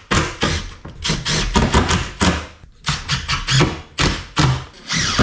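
Cordless power driver sinking screws into a wooden bulkhead, run in short bursts with brief pauses between, about eight or nine in all.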